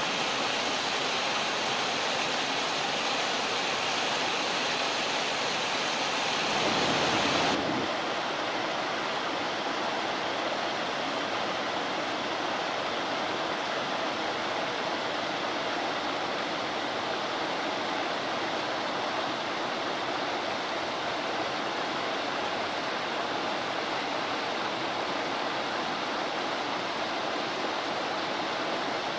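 Mountain river rushing steadily over rocks and small rapids, a constant even noise of flowing water; it dulls slightly about seven seconds in.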